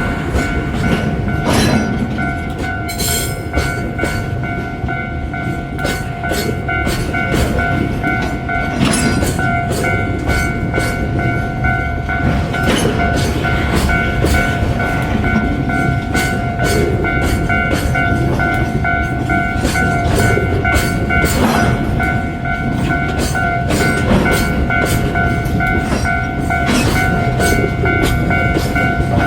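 Kintetsu electric train passing close by, its wheels clattering over the rail joints in a continuous run of rapid clicks over a steady rumble. Several steady high tones run underneath.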